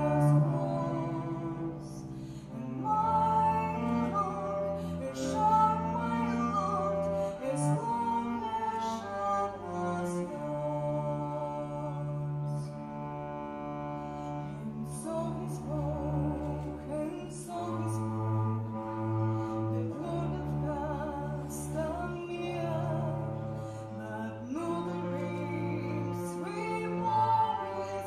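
Two cellos playing a slow piece, long bowed low notes held under the melody, with a woman's voice singing over them.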